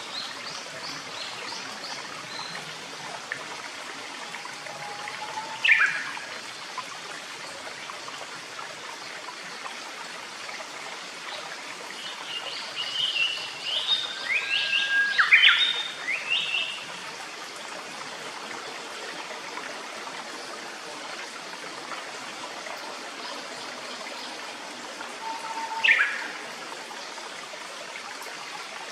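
A clear forest stream running steadily, with a Japanese paradise flycatcher calling over it: a short falling note about five seconds in, a longer run of notes midway, and another short falling note near the end.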